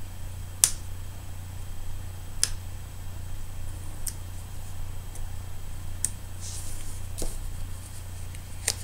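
About six sharp, light clicks and taps spread across several seconds, with a faint rustle, from a pointed craft tool and small paper pieces being handled while foam adhesive pop dots are picked up and pressed on; a steady low hum runs underneath.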